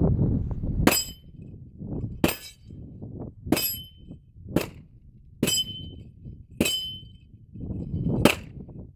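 Pistol fired seven times at a steady pace, about a second apart, with a slightly longer gap before the last shot. After several shots a short high metallic ping rings out: steel targets being hit. A low rumble comes before the first shot.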